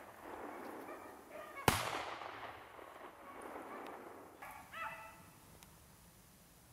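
.410 pistol shot about two seconds in, a single sharp crack followed by a long echo that fades over a couple of seconds.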